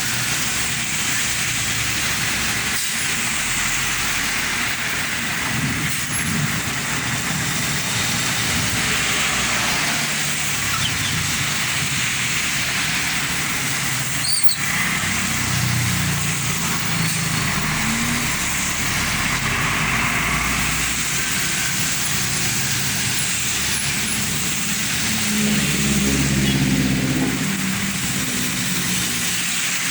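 Road traffic in the rain: a steady hiss of rainfall and tyres on wet asphalt, with the engines of passing motor vehicles rumbling underneath, swelling as vehicles pass about halfway through and again near the end.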